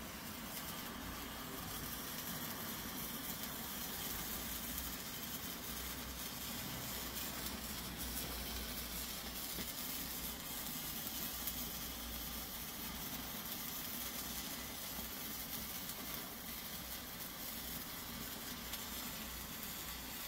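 A Weco Zauberlichter handheld Bengal-fire sparkler burning with a steady hiss.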